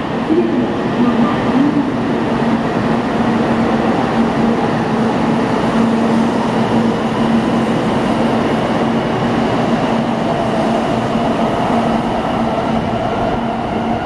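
An 800 series Shinkansen pulling out of the station and gathering speed past the platform, with a steady rushing rumble of the moving train. From about halfway through, a whine climbs slowly in pitch as it accelerates.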